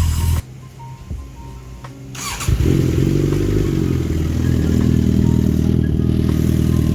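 A motorcycle engine running stops abruptly half a second in. About two and a half seconds in, a motorcycle engine starts and settles into a steady idle through an aftermarket exhaust.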